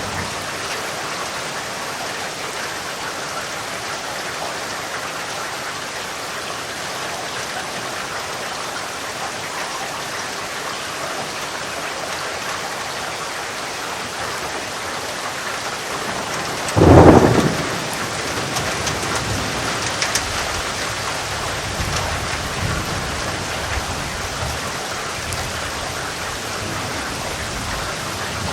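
Steady rain falling, with a sudden loud thunderclap a little past the middle, followed by thunder rumbling for several seconds.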